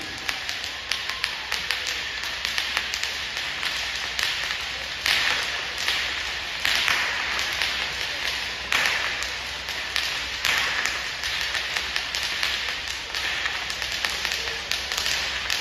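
Several whips being cracked over and over, a rapid scatter of sharp cracks overlapping one another, with a louder crack roughly every two seconds from about five seconds in.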